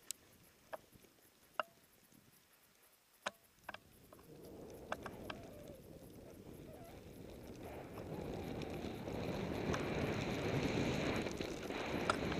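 A few sharp clicks and knocks of gear while the skier is stopped in deep snow. Then, from about four seconds in, a rushing hiss that grows steadily louder as he slides off through deep powder snow, with wind on the microphone.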